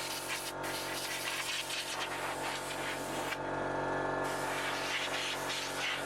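A handheld power tool's electric motor running steadily, with a hissing scrub as it works over the surface of a motorcycle part to clean it up. The scrubbing eases for about a second midway.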